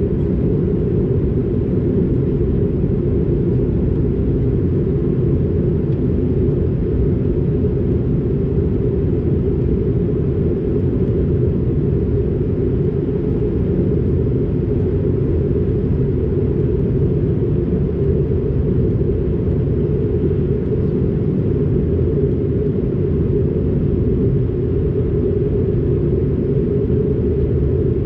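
Steady low cabin drone of an Airbus A220-300 airliner in flight, heard from a window seat: airflow and engine noise from its Pratt & Whitney PW1500G geared turbofans, unchanging throughout.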